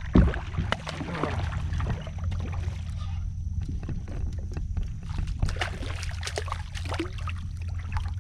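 Water splashing and knocks around a plastic fishing kayak as a hooked redfish is fought to the boat, with a loud thump just after the start, over a steady low rumble.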